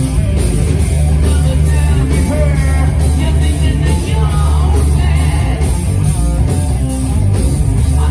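Loud live rock band: a singer over distorted electric guitars and drums, heavy in the low end.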